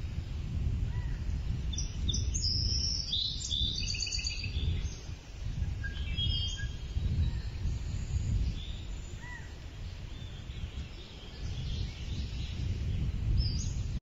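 Birds chirping over a steady low rumble of outdoor noise. A cluster of quick, high chirps comes about two to four seconds in, with a few more short calls later.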